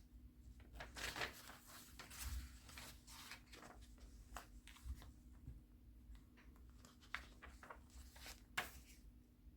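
Paper pages of a handmade junk journal being turned and handled: faint rustles and crinkles of paper, with a sharper one near the end, over a low steady hum.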